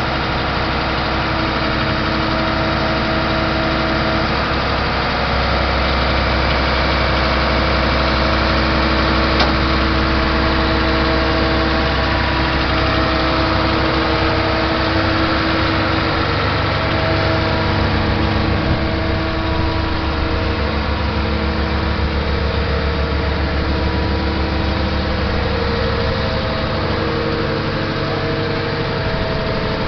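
Mercedes-Benz Actros 3236 truck's V6 diesel engine running steadily at idle. Its low note deepens and grows stronger about five seconds in, then eases near the end.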